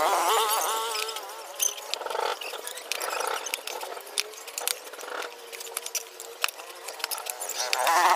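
An animal calling twice with a quavering pitch, once right at the start and again near the end, over scattered light clicks and knocks from a motorcycle tyre being worked by hand onto a spoked wheel rim.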